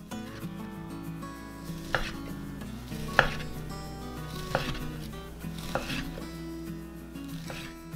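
Chef's knife slicing down through a stack of fried fish-cake sheets, each cut ending in a knock on the wooden cutting board: about five cuts a little over a second apart.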